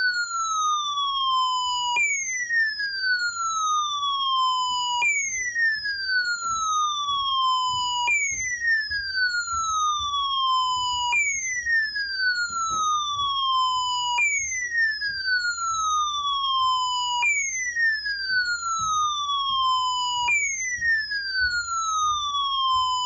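Electronic emergency-alert tone, a siren-like sweep that falls in pitch over about three seconds, jumps back up and repeats steadily. It signals an Emergency Alert System weekly test.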